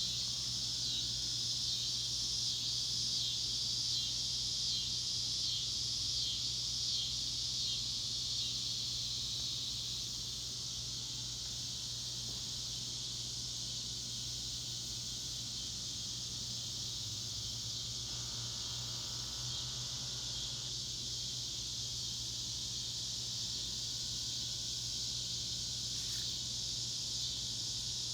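Chorus of cicadas singing, a dense high-pitched drone. For about the first ten seconds it pulses roughly once a second, then it evens out into a steady buzz and drops slightly in loudness.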